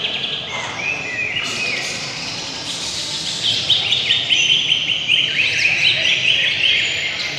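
Several caged songbirds singing together, with busy, fast chirps and trills that overlap and grow louder about halfway through.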